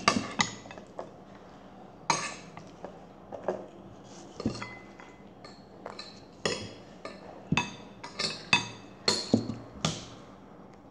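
Dishes and cutlery clinking and knocking on a table: a string of short, sharp clinks at uneven intervals, some ringing briefly, coming faster in the second half.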